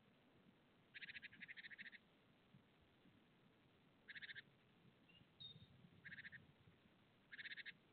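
An animal's fast rattling call, given in four short bursts with a single brief high whistle between them, over a very quiet background.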